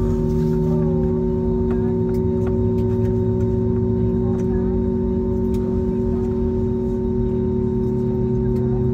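Airbus A320neo cabin on the ground: the engines and air systems make a steady hum with several held tones. A lower tone comes in just after the start and slowly drops in pitch.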